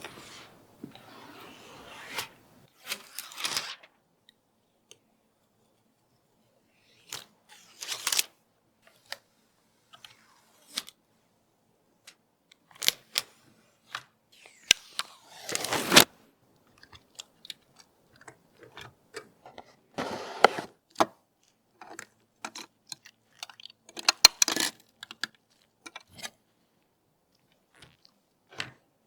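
Hands handling computer parts and their packaging: scattered clicks, crinkles and short rustling scrapes with quiet gaps between them. The longest rustle comes about halfway through.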